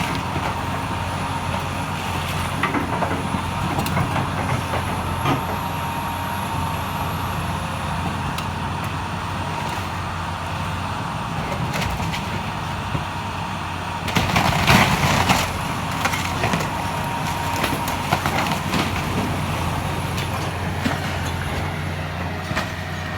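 Heavy demolition machinery engine running steadily under load, with scattered cracks and crunches of breaking wood and debris and a louder burst of crashing about two-thirds of the way through.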